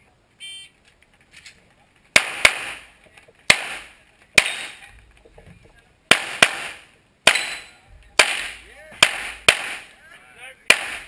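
A short electronic shot-timer beep about half a second in, then a handgun fired about eleven times from about two seconds in, in quick pairs and single shots. Each shot is a sharp crack with a short ringing tail.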